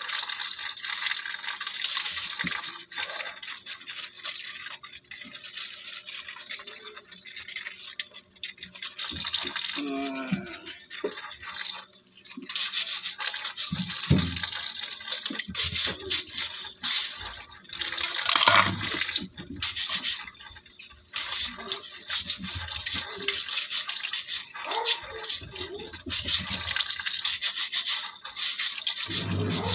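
A small hand scrub brush scrubbing the shell of a raw crab in short, irregular strokes, under a running tap splashing into a stainless-steel sink.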